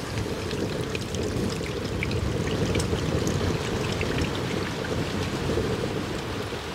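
Tamarind pulp water pouring from a small pot into a clay pot of fried yam pieces, a steady splashing trickle that stops just before the end.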